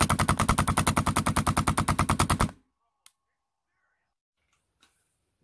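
PepperBall VKS launcher firing a rapid, even string of shots, about a dozen a second, that stops abruptly about two and a half seconds in. A single sharp click follows about half a second later.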